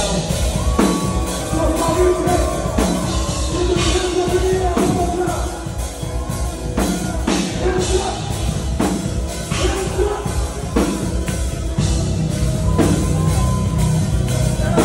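Progressive metalcore band playing live through a club PA: distorted guitars, drum kit and a singer's vocals, with heavy accented hits about every two seconds.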